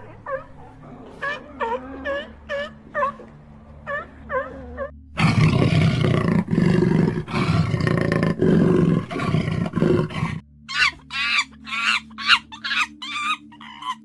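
A big cat growling loud and rasping for about five seconds in the middle, with runs of short repeated animal calls before and after.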